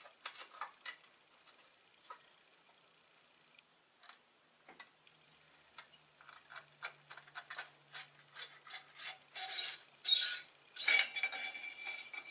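Clicks, small knocks and scraping as an outboard lower unit's water pump housing is worked loose by hand and slid up the driveshaft off the impeller. The rubbing and scraping grow louder near the end.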